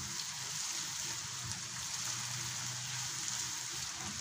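Onion, carrot and tomato sauce base sizzling steadily in a hot frying pan.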